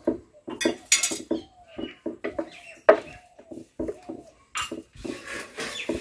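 Kitchen utensils knocking and clinking in a quick, irregular series of short strikes, with a few brief squeaky tones in the middle.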